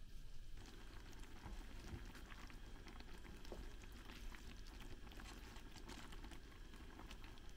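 A pan of vegetables, kidney beans and feta simmering on a gas stove, with faint bubbling and crackling that starts about half a second in. A few light knocks come from a wooden spatula stirring it.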